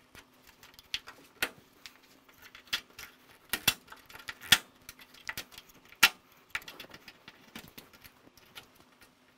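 A small hand tool scraping and picking at old hard seam sealer and rust debris in the steel rear window channel of a 1966 Ford Falcon: irregular scratches and sharp clicks, with a few louder knocks.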